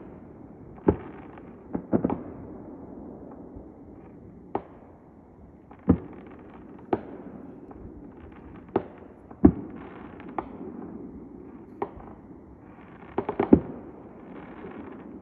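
Fireworks display: about a dozen sharp bangs at irregular intervals over a continuous low rumble, with a quick run of several bangs near the end.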